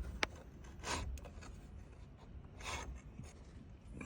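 A faint click, then two soft rubbing sounds, about a second in and near three seconds.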